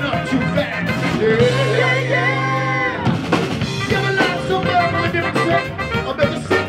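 Live rock band with a horn section of saxophones and trombone, plus drums, bass, keys and guitar, playing an upbeat groove. About a second and a half in, the band holds one long chord over a steady bass note for about a second and a half, then the beat picks back up.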